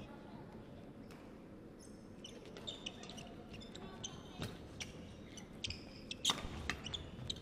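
Badminton rally: sharp cracks of rackets striking the shuttlecock and brief high squeaks of court shoes on the wooden floor, starting about two seconds in, with the loudest hit near the end.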